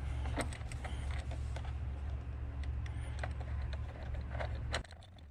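Light, irregular clicks and taps of a bolt, nut and metal mounting bracket being handled and fitted by hand, over a steady low hum that cuts off shortly before the end.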